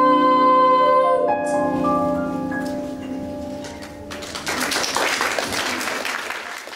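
A boy's voice holds the last sung note over a backing track. The note ends about a second in, and a few backing-track notes fade out. From about four seconds in, an audience applauds.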